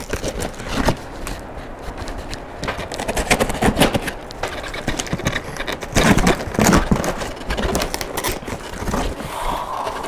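Scissors slitting packing tape on a cardboard box: irregular scraping and crackling of tape and cardboard, with the box handled and its flaps pulled open near the end.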